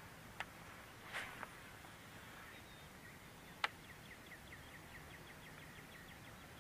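A songbird's rapid trill of short, falling chirps, about six a second, fading in and then stopping near the end. A few faint clicks come early, with one sharper click about halfway through.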